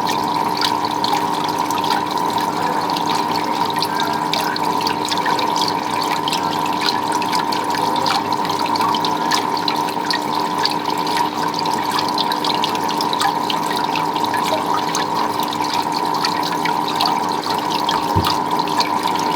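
Water splashing and trickling steadily, full of small drips and splashes, over a steady hum. A brief low thump comes near the end.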